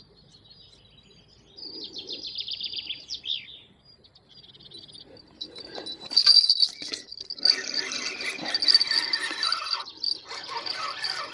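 Small songbirds chirping with a quick high trill. From about halfway, a spinning fishing reel is wound in, a steady whirring with a short break near the end.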